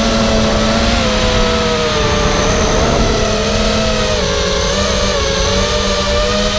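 Motors and propellers of a Charpu 210 Storm Edition FPV racing quadcopter whining in flight, heard from its onboard camera. Several close tones waver up and down with the throttle over a steady rush of wind noise.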